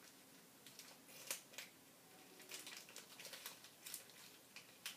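Faint, scattered clicks and light rustles of a toy blaster's cardboard-and-plastic packaging being handled, about a dozen small ticks.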